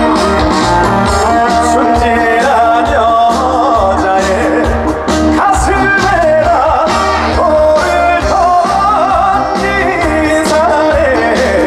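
Live trot song played loud by a band with a steady beat, a singer's voice carrying the melody over it.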